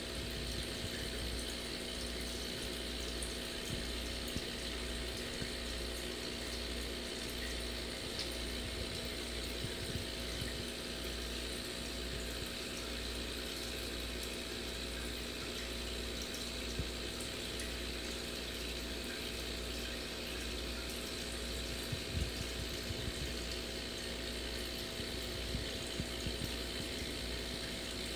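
Aquarium aeration running: a steady fizz of fine bubbles rising through the water over a low, even hum.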